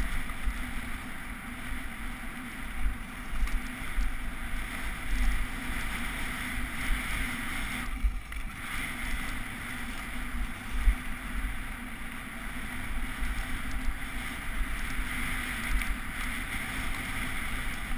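Wind rushing over a GoPro Hero HD and the rumble of a mountain bike riding fast downhill over a bumpy, snow-covered trail. The loudness jumps with the bumps, with one sharp jolt about eleven seconds in.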